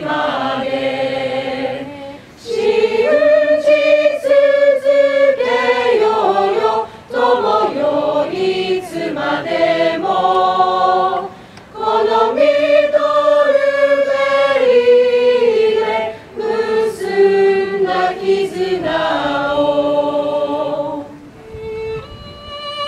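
A mixed group of students singing a Japanese school song unaccompanied, in phrases broken by short pauses for breath. The singing stops near the end and a solo violin begins.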